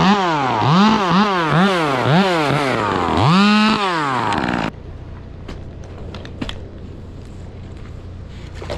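Two-stroke chainsaw revved in quick throttle blips, about two a second, then one longer rev. It cuts off abruptly about four and a half seconds in, leaving faint clicks and knocks.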